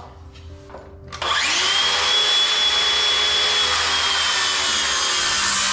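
Circular saw starting about a second in, spinning up with a rising whine and then cutting steadily through a 2x4, a high steady whine over the noise of the blade in the wood.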